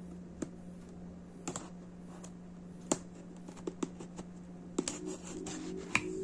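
Knife blade cutting through the seal sticker on a cardboard box: scattered sharp clicks and scratches, coming more often in the second half, over a steady low hum.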